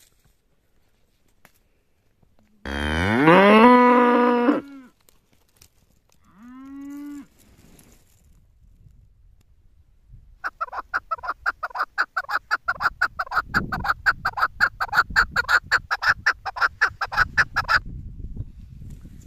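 A cow mooing: one loud, long moo that rises and then holds, followed by a shorter, quieter moo. After that comes a long run of rapid, evenly repeated bird calls, several a second.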